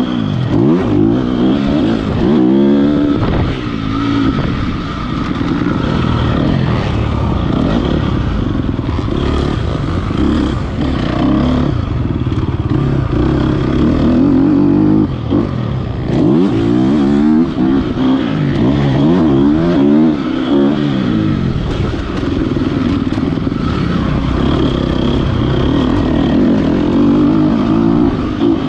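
KTM motocross bike's engine being ridden hard on a dirt track, revving up and backing off again and again, its pitch climbing and dropping with the throttle and gear changes.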